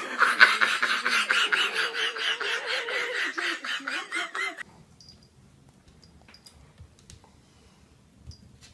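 A pet's long, wavering growling cry with a rapid pulse, from a puppy and cat wrestling, lasting about four and a half seconds and cutting off abruptly; then only faint rumble and a few small clicks.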